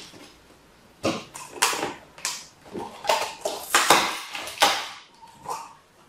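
Box cutter slitting packing tape on a cardboard box and the flaps being pulled open: an irregular run of scratchy strokes and cardboard rustling starting about a second in, easing off near the end.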